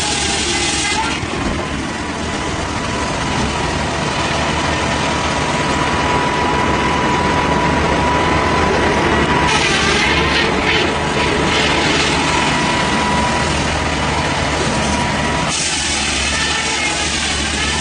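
Heavy engine-driven machinery running steadily, with a constant low hum and a thin high whine. The hiss above it changes at about one second, ten seconds and fifteen seconds in.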